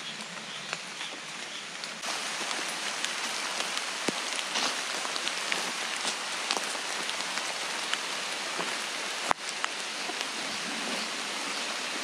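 Steady rain falling through the forest onto leaves, with scattered drops ticking. It gets louder about two seconds in, and there is one sharp click about nine seconds in.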